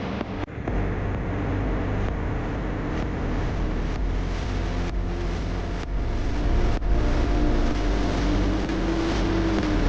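Engines of vehicles or construction machinery running with a steady low rumble, broken by a few brief dropouts.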